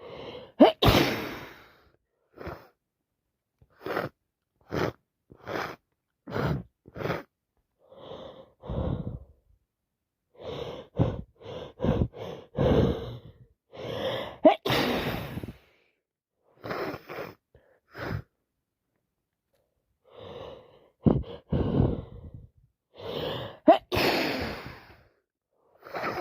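A woman with a wet head cold sneezing again and again, each sneeze led by a sharp gasping in-breath, with short breaths and sniffs between them. The loudest sneezes come about a second in, halfway through and near the end.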